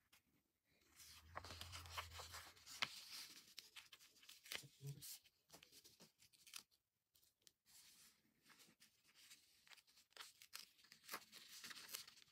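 Faint crinkling and rustling of a paper sticker sheet as small stickers are picked and peeled off their backing with a fingernail, with scattered small clicks.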